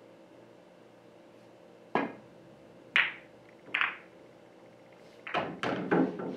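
Pool shot: the cue tip strikes the cue ball about two seconds in, then two sharp ball-on-ball clicks about a second apart, then a quick run of knocks near the end as the balls collide and come off the cushions.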